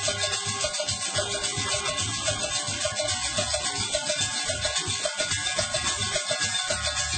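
Percussion band playing a fast, steady dance beat, with shakers and drums to the fore.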